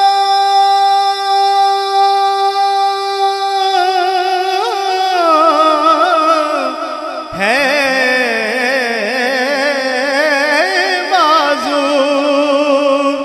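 A man's voice singing a naat unaccompanied into a microphone: one note held for about four seconds, then wavering, ornamented runs, and a new phrase sliding up about seven seconds in.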